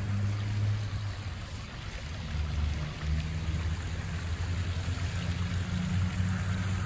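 Backyard koi pond waterfall splashing and trickling steadily, with a steady low hum underneath.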